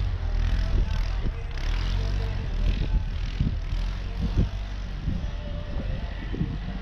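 CFMOTO CForce 600 ATV's single-cylinder engine running steadily while riding, with patches of hiss over it.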